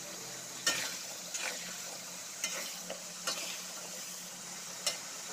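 Jengkol (dogfruit) slices sizzling as they fry in hot oil in a wok, a steady hiss, with a metal spatula clinking and scraping against the pan several times as they are stirred.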